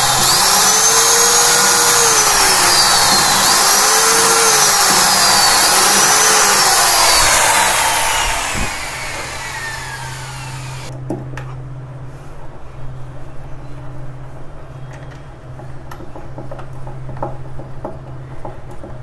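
Cordless drill-driver driving screws: its motor whine rises and falls three times over the first seven or eight seconds as the trigger is squeezed and eased, then it stops abruptly about eleven seconds in. Scattered light clicks of hand-tool work follow.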